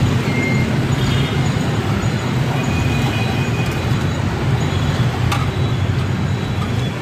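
Steady rumble of road traffic, with oil sizzling in a wok where battered fritters are deep-frying. A single sharp click comes about five seconds in.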